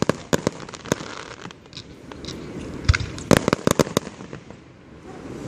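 Fireworks going off: a run of sharp bangs and crackling pops, thickest about three seconds in, over a low rumble.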